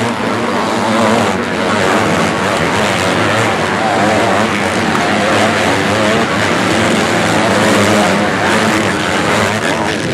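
A pack of MX2 motocross bikes racing past together, many engines revving over each other and their pitch rising and falling as the riders go over the jumps.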